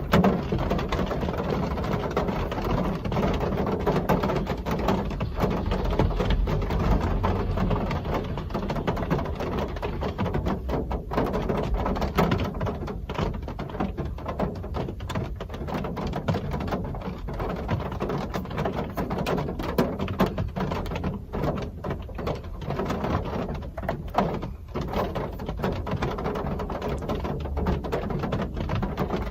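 Real rain falling steadily, a dense crackle of drops over a low rumble.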